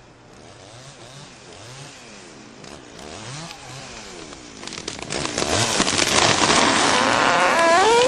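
Two-stroke chainsaw engine running and revving, its pitch sliding up and down, faint at first and much louder from about five seconds in, with a sharp rising rev near the end.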